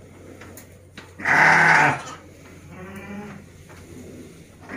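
Sheep bleating in a pen: one loud bleat about a second in, then a fainter bleat around three seconds in.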